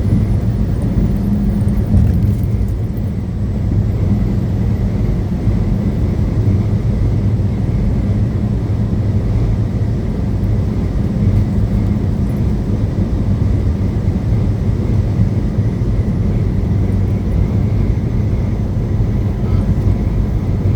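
Steady engine and road drone inside a moving truck's cab: a constant low hum over tyre and road noise.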